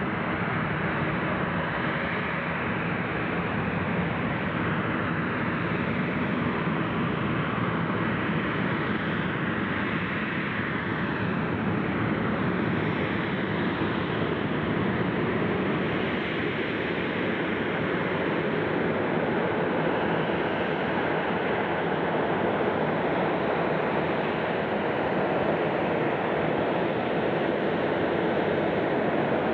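Boeing 737-800's CFM56-7B turbofan engines running at taxi power close by: a steady jet rush with faint wavering whines near the middle.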